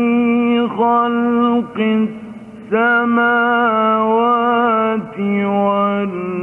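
A male Quran reciter chanting in long, held melodic notes in the ornate mujawwad style, the notes broken by short pauses, with a quieter stretch about two seconds in.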